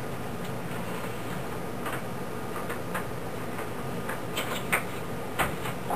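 Light clicks and taps of a flatbed scanner being handled, over steady room noise, with the sharpest clicks in the second half.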